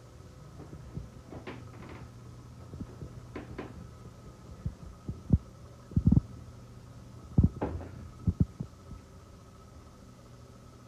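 Steady low hum with a faint high whine under it, broken by irregular low thumps and soft knocks from a handheld camera being moved and handled. The knocks come in a cluster of heavier thuds around the middle.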